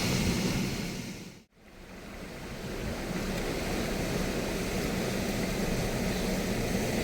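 Steady rushing of wind and surf. It dips sharply to silence about one and a half seconds in, then fades back up.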